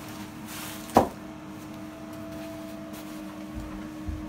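Steady hum of the hydraulic pipe-bursting rig running, with one sharp knock about a second in.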